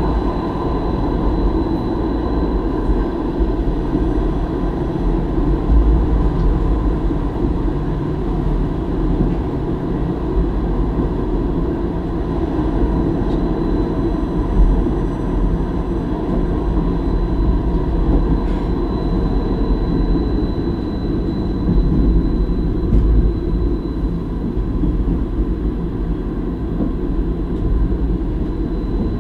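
Stadler Variobahn tram running along its track, heard from the driver's cab: a steady low rumble of wheels on rail with a thin, steady high tone above it.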